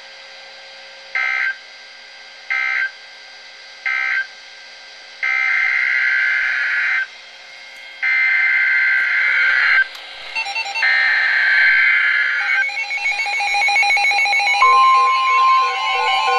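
NOAA Weather Radio EAS/SAME digital data tones: three short bursts of end-of-message code, then the three longer bursts of a new alert's SAME header. Weather alert receivers then set off their alarms in a mix of repeating beeps, and the steady 1050 Hz weather radio warning tone joins about two seconds later.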